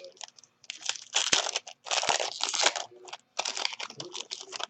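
Crinkling and tearing of a trading-card pack wrapper being opened by hand, in three bursts of rustling.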